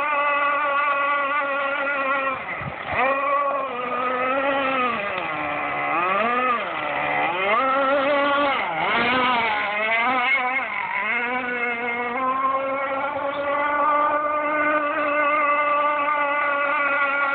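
Radio-controlled rigger hydroplane running flat out on the water, its motor giving a high, buzzing note. The note holds steady, then dips and climbs several times in the middle before settling back to a steady pitch.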